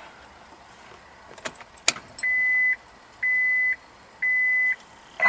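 Car key clicking and jingling in the ignition, then the 2000 Acura TL's dashboard warning chime with the ignition on: a steady single-tone beep about once a second, three full beeps and a fourth starting at the end.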